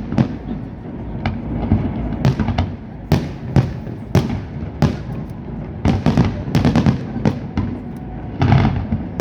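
Fireworks going off: a string of sharp bangs at irregular intervals, several of them bunched in quick succession about six seconds in and again near the end.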